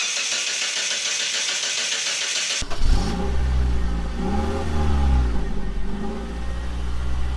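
A hissing rush for about the first two and a half seconds, then a sudden change to a car engine running and revving, its pitch rising and falling.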